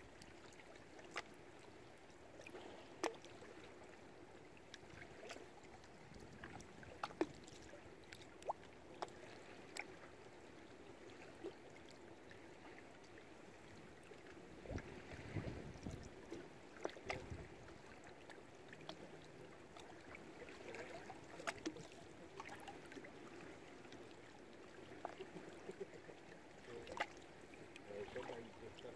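Faint lapping water against moored boats, with scattered light clicks and knocks and a couple of low dull thuds around the middle.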